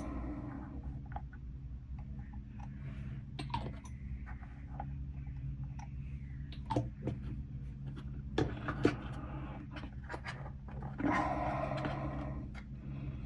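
Small clicks and taps of plastic kit parts and a cement bottle being handled during gluing, with a brief rustle near the end, over a steady low hum.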